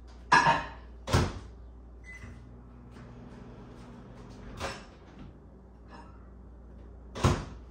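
Over-the-range microwave oven: its door clacks and shuts about a second in, a short beep follows, and the oven hums steadily for a couple of seconds before a click stops it; near the end the door bangs shut again.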